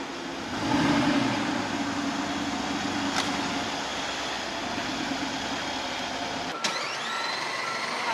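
Brabus-tuned Mercedes G-Class engine idling steadily. About a second and a half before the end the sound cuts abruptly and a faint rising whine comes in.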